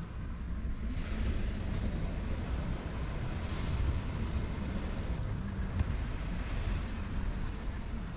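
Steady low rumbling background noise with a hiss over it, continuous and without clear events.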